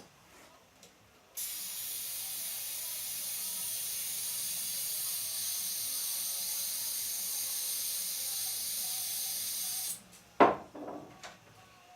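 Butane gas hissing steadily into a handheld soldering torch as it is refilled from a canister, for about eight seconds before cutting off abruptly. A sharp knock follows just after.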